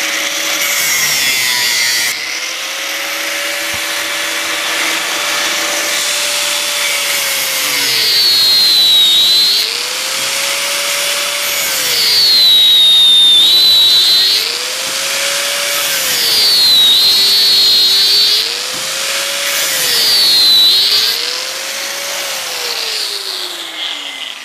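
Angle grinder with a cut-off disc running and cutting through the copper windings of a small motor stator. Its whine sags in pitch about five times as the disc bites into the copper, with a harsh screech during each cut, then recovers. It winds down near the end.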